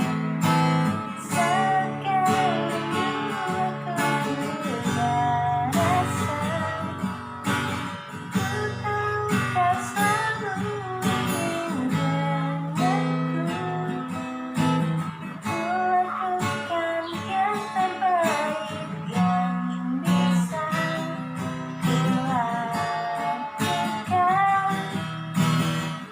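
Acoustic guitar strumming chords, with a woman singing a wavering melody over it.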